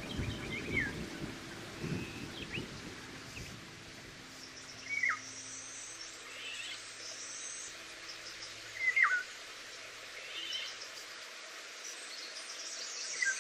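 Birdsong over steady background hiss. One clear down-slurred whistle repeats about every four seconds, with fainter high twittering between. A low rumble dies away in the first couple of seconds.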